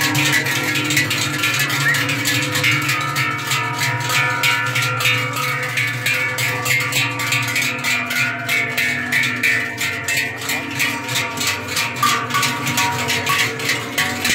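Many large cowbells on a herd of walking cows, clanging continuously with overlapping ringing tones as the cows pass close by.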